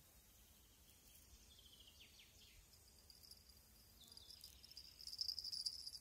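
Faint, high-pitched insect trill that grows louder and pulses rapidly about five seconds in. A few short, falling bird-like chirps come earlier.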